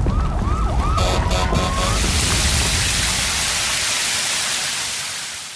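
Cartoon sound effects: a low rumble of an erupting volcano with a few short musical notes. About two seconds in, a fire hose's water spray takes over as a steady, loud hiss that fades away near the end.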